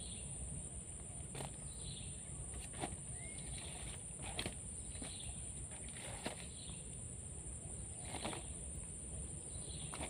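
Forest insect drone, a steady high-pitched hum, with short falling chirps repeating every second or two and scattered clicks and knocks.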